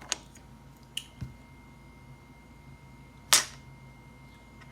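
A few sharp plastic clicks of LEGO bricks being handled and pressed together, the loudest and sharpest about three and a half seconds in.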